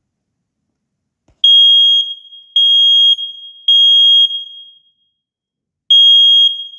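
Smoke alarm sounding on its test button: a really loud, high single-pitched beep in groups of three, each beep about half a second long, with a pause after each group — the temporal-three fire alarm pattern. The beeping starts about a second and a half in, and a second group begins near the end.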